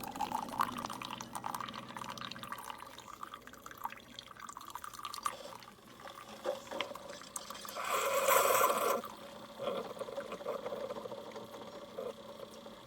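Keurig single-serve coffee maker dispensing liquid into a cup, a stream with irregular drips, and a louder burst of hiss about eight seconds in.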